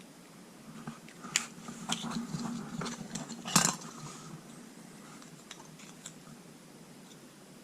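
Several sharp clicks and light knocks of hard plastic model-kit parts being handled, the loudest about three and a half seconds in.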